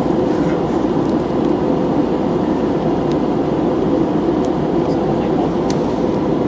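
Airliner cabin noise in flight: a steady rush of engine and airflow noise with a faint steady hum in it.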